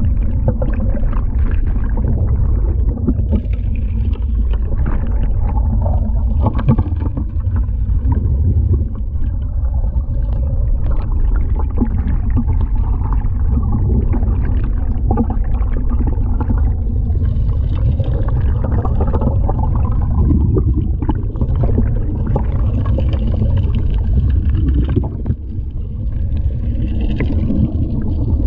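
Underwater sound of a gold suction dredge at work: a steady low rumble with gravel and small rocks clicking and knocking as they are sucked into the nozzle.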